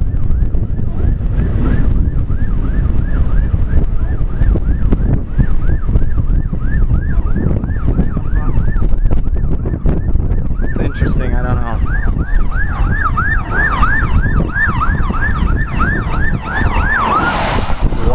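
Emergency vehicle siren in a fast yelp, rising and falling about two to three times a second and growing louder toward the end, over heavy wind buffeting on the microphone.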